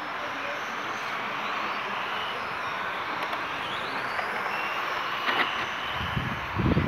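Radio-controlled model trucks racing around a track, their motors whining and rising and falling in pitch as they speed up and slow down. A few low thumps come near the end.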